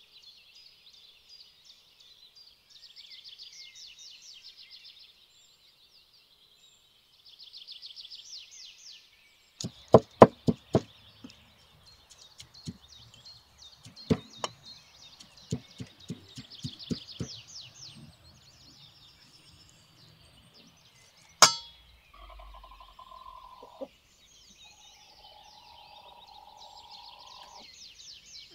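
Small birds twittering throughout. About ten seconds in, a quick run of loud knocks as a cleaver chops meat on a wooden stump block, continuing more sparsely for several seconds. Near the end, chickens give two drawn-out calls.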